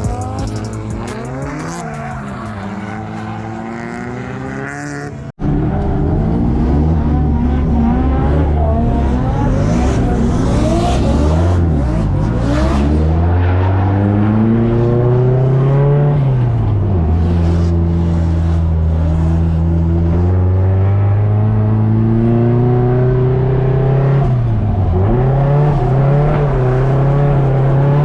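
Nissan S13 drift car's engine revving up and down hard as it drifts, with tyres squealing. There is a sharp cut about five seconds in, after which it is louder.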